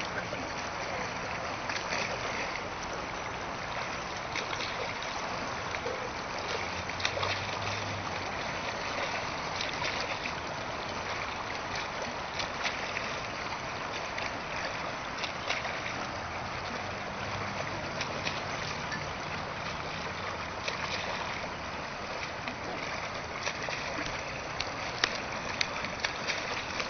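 A swimmer's arm strokes and kick splashing in a pool: a steady wash of churning water with frequent small splashes.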